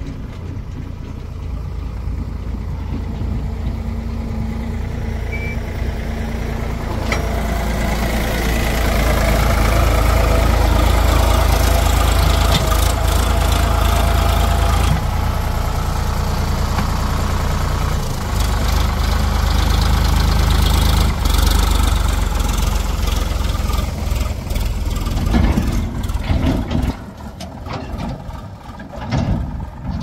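Heavy diesel engine running under load, growing louder over the first several seconds and then holding steady, with a few short knocks and clanks. Near the end it rises and falls unevenly.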